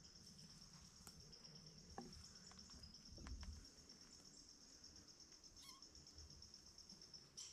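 Faint, steady high-pitched trilling of an insect chorus in the forest, with a few faint clicks and a soft low thump about three seconds in.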